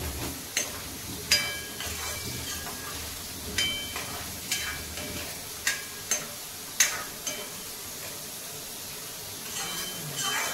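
Tomatoes and masala sizzling in a steel kadai while a steel spoon stirs them. Several sharp clinks ring out where the spoon strikes the pan.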